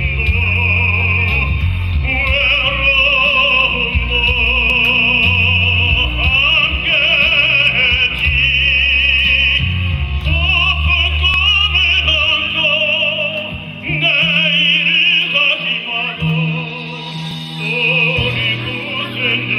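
Music: a high, vibrato-laden lead melody over a bass accompaniment.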